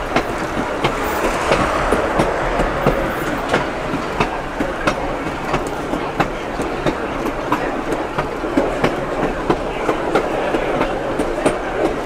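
Railway car wheels rolling along jointed track with a steady rumble and irregular clickety-clack clicks at the rail joints, heard aboard a moving passenger train.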